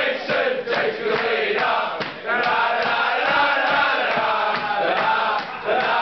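A group of football supporters chanting together in unison: short rhythmic shouted beats at first, then from about two seconds in a drawn-out sung chant.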